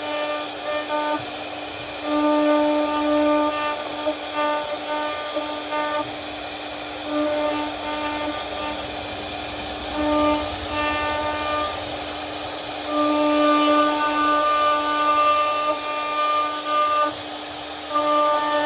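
CNC router spindle running with a steady whine while the bit cuts into wood with a constant hiss; the whine keeps its pitch but swells and fades every second or two as the cut changes.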